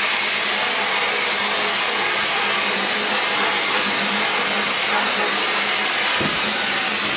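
Wet-blasting (vapor honing) cabinet running: the blast gun's compressed-air jet of glass-bead and aluminium-oxide slurry hisses steadily and loudly against a machined aluminium part, over a faint steady low hum.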